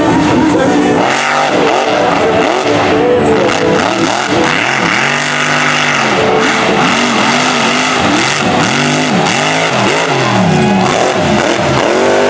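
Mega truck engine revving hard over and over as it races through the dirt course, its pitch climbing and dropping again every second or so, with the rush and spray of the tires churning dirt.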